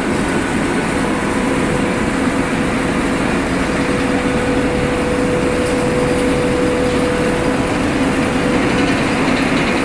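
Refrigerator recycling line machinery running steadily: a dense, even mechanical noise with a constant motor hum.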